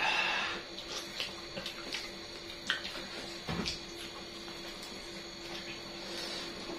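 Close-miked eating of chicken feet: chewing and gnawing with scattered small wet clicks and smacks. There is a short noisy burst at the start and a low bump about three and a half seconds in, over a faint steady hum.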